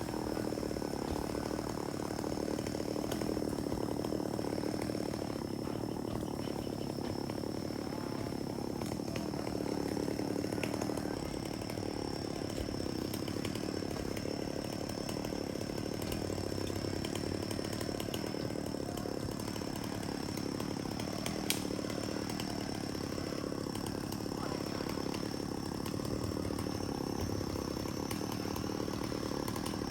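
A chainsaw running steadily at a distance, holding an even pitch, with a single light knock about two-thirds of the way through.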